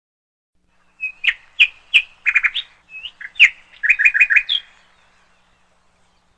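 A small bird chirping and twittering: a quick run of sharp notes and short trills lasting about four seconds.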